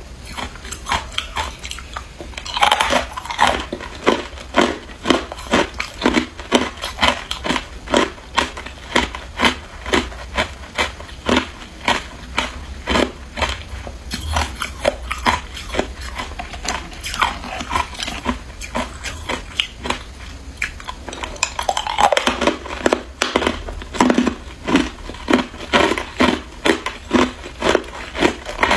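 Hard ice cubes being bitten and chewed, crunching between the teeth close to the microphone: a steady run of sharp crunches about twice a second, with heavier bursts of crunching a few seconds in and again about three-quarters of the way through.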